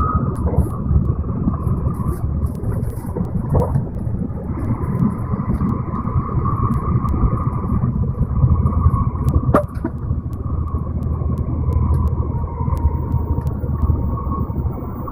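Steady low rumble of an N700 series Shinkansen heard inside the passenger car as it runs, with a faint steady whine and light ticks over it. A brief sharp sound comes about nine and a half seconds in.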